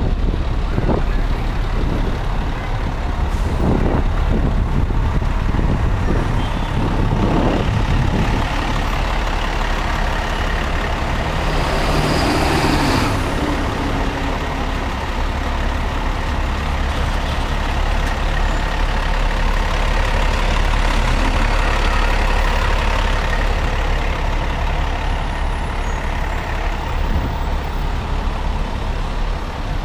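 Fire truck's diesel engine idling with a steady low rumble, with a loud burst of air-brake hiss about twelve seconds in and a few dull knocks in the first several seconds.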